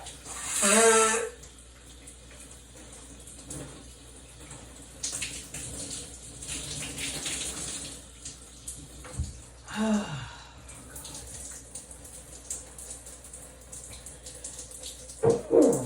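Shower water running, with a loud sneeze about a second in. A shorter voiced sound, falling in pitch, comes midway, and another loud one near the end.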